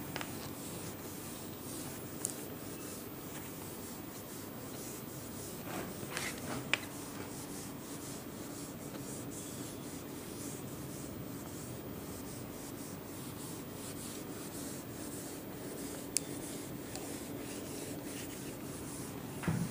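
Cloth wiping marker writing off a whiteboard in steady rubbing strokes, with a few brief clicks.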